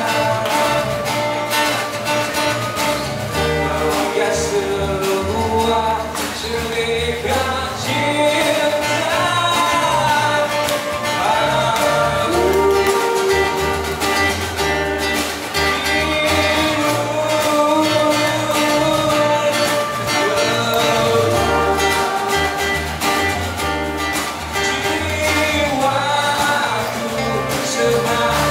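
Live band music: strummed acoustic guitars and drums under a male lead singer.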